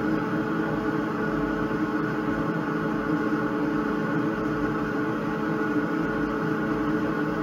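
xTool D1 Pro laser engraver running while it engraves wood: a steady mechanical hum with several whining tones from the moving head's drive.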